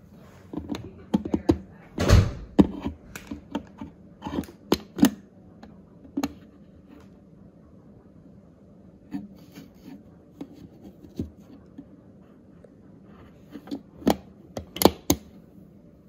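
Plastic clicks and knocks from handling a WELOV cool mist humidifier's base: the slotted cover over the filter sponge being opened and snapped shut. They come in clusters, the busiest in the first few seconds and again near the end, over a steady low hum.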